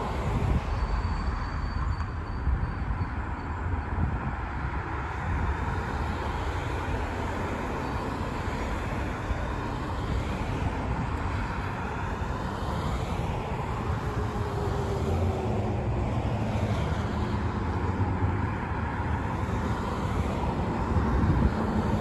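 Road traffic on a multi-lane road: a steady wash of car tyre and engine noise with a low rumble. One passing vehicle gives a faint falling tone partway through.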